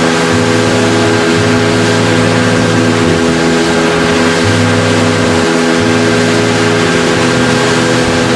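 Outboard motor of a small open boat running steadily at speed, under a constant rush of water and wind.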